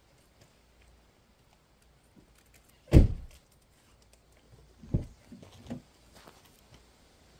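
A loud single thump about three seconds in, then a softer knock about two seconds later followed by a few light scuffing sounds.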